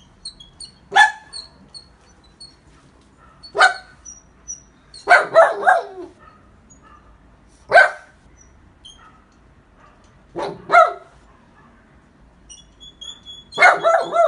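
Dog barking about a dozen times, in single barks and quick runs of two to four, with faint short high chirps between the barks.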